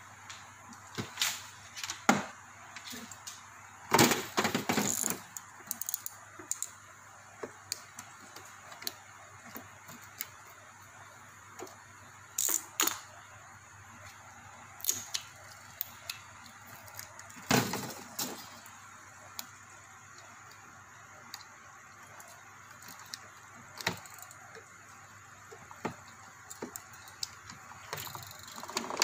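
Scattered plastic clicks, taps and knocks from a circuit board and its wire connectors being handled and fitted into a plastic air cooler housing. The loudest is a short clatter of rattling knocks about four seconds in.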